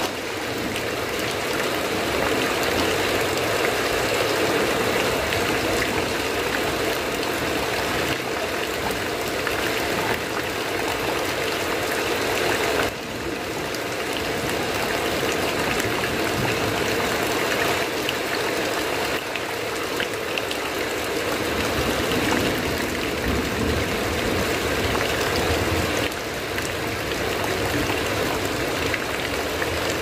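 Heavy rain falling steadily, an even hiss of water. The level dips briefly twice, near the middle and near the end.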